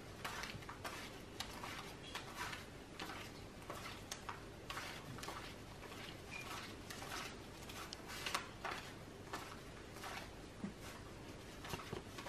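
Paper banknotes being counted by hand, each bill peeled off the stack with a short crisp rustle or flick, a couple each second at an uneven pace.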